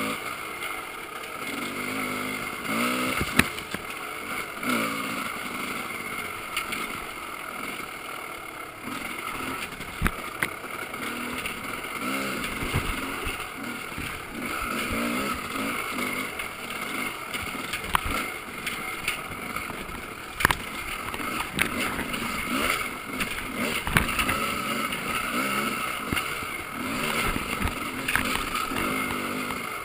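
Dirt bike engine heard through a chest-mounted GoPro's waterproof case, its pitch rising and falling with the throttle on a slow trail ride, with a few sharp knocks now and then.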